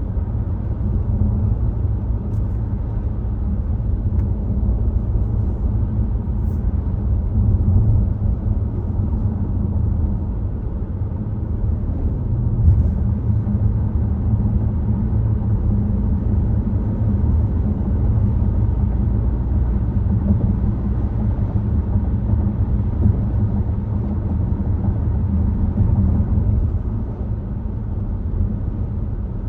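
Volvo XC60 driving along at a steady pace: a continuous low rumble of road and engine noise that stays even throughout.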